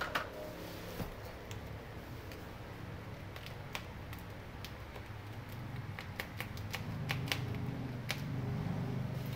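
A marker pen writing on a plastic-wrapped cardboard box: scattered light ticks and scratches as the strokes go down. A low steady hum comes up underneath after about six seconds.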